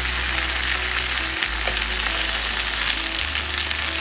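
Tandoori-marinated chicken leg quarters frying in hot oil and marinade in a pan, a steady sizzle with small pops. Background music plays underneath.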